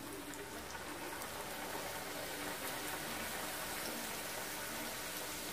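Poori deep-frying in hot oil in a kadai: a steady sizzle that starts as the dough goes into the oil.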